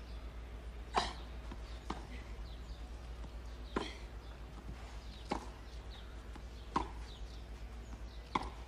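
Tennis rally on a clay court: the ball is struck with rackets, five sharp pocks at roughly one-and-a-half-second gaps, with a fainter knock between the first two, over a quiet, hushed crowd.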